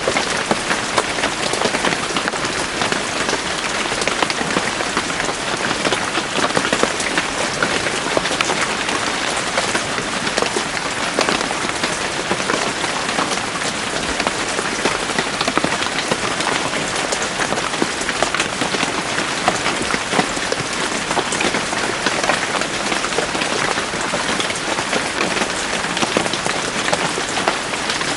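Steady heavy rain falling in a forest, a dense hiss of drops pattering on leaves and ground.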